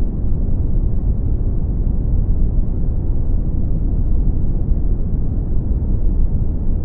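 Brown noise: a steady, deep rushing hiss, strongest in the bass and dark in the treble, with no changes.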